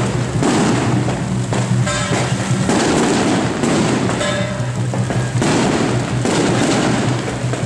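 Strings of firecrackers crackling in a dense, continuous rattle, with steady music underneath.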